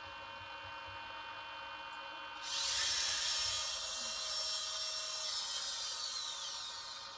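Servo motors in a 3D-printed InMoov humanoid robot whining as its head turns and its arms move. A steady faint hum sits underneath. A louder, higher whine starts about two and a half seconds in, and its pitch falls away near the end.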